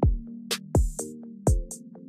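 Electronic background music: sustained synth chords over a drum-machine beat, with a deep kick drum about every three-quarters of a second and sharp high hits between.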